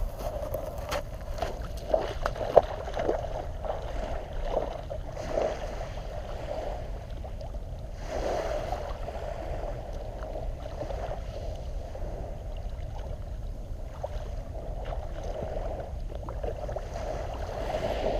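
Shallow seawater sloshing and lapping with scattered small splashes, over a steady low rumble.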